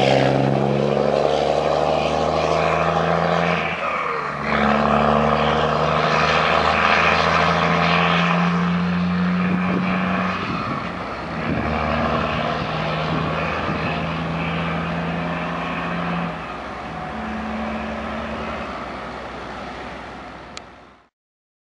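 Diesel tractor-trailer engine pulling away under power, the engine note breaking off and resuming at a new pitch several times as it changes up through the gears, slowly fading into the distance. The sound cuts off suddenly near the end.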